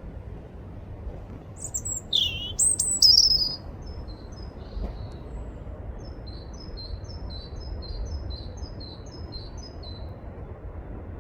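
European robin singing: a loud burst of high chirps and trills about two seconds in, then a run of short, high, evenly repeated notes, about three a second, over a low wind rumble.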